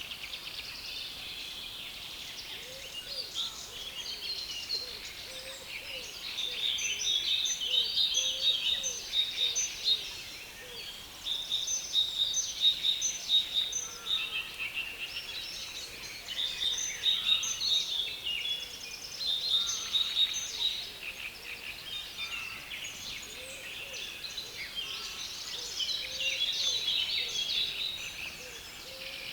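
Songbirds in a reed bed singing loudly over one another: a dense, scratchy chatter of rapid high notes that swells and eases in bouts of a few seconds.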